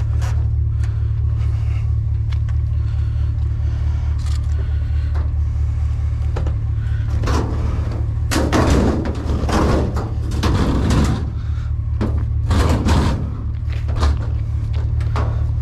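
Steady low drone of a motor vehicle driving, engine and road noise, with several louder rough surges of noise in the second half.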